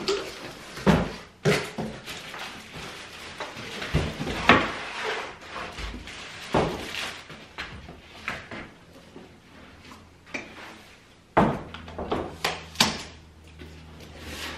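A soft-sided suitcase being unpacked from its cardboard box and handled: rustling of cardboard and packaging, broken by repeated sharp knocks and thumps as the case is lifted out and set down on its wheels.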